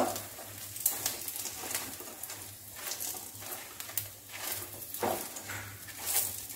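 Spatula stirring and scraping chicken pieces frying in oil in a kadai, in irregular strokes, over a steady low hum.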